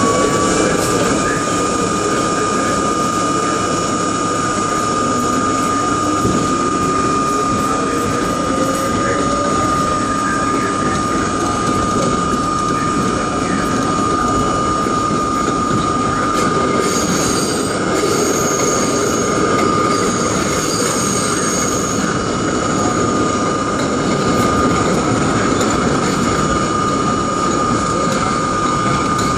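R32 subway train running at speed, heard from the front window: steady rumble of wheels on track under a high whine. The whine rises in pitch at the start and then holds level, with a second, lower whine rising for a few seconds near the middle.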